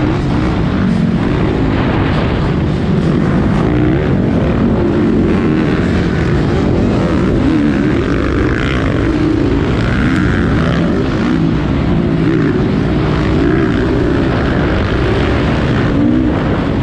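Motocross motorcycle engine running hard, its revs rising and falling over and over as the rider throttles and shifts.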